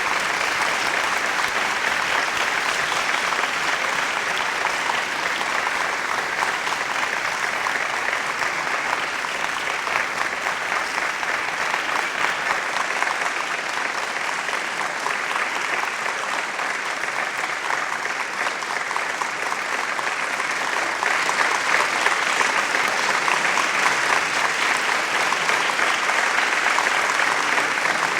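Steady, dense applause of many hands clapping, a little louder for the last third.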